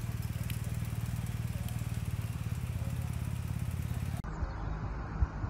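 Tanker lorry's diesel engine idling steadily with a fast, even throb. About four seconds in it cuts off abruptly, giving way to a low rumble with a sharp thump near the end.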